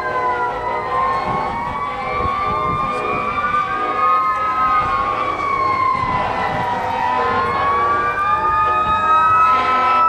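Fire truck sirens wailing: two slow rising-and-falling tones overlapping out of step, each sweeping up and down about every four to five seconds.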